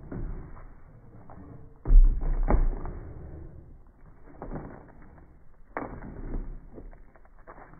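A few dull thumps and knocks: a loud one about two seconds in with a second close after it, then softer ones later.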